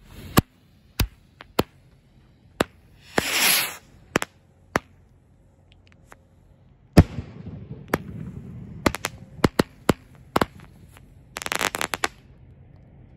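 A 16-shot consumer firework firing: a string of sharp bangs at uneven intervals, with a hissing rush about three seconds in and a quick flurry of crackling near the end.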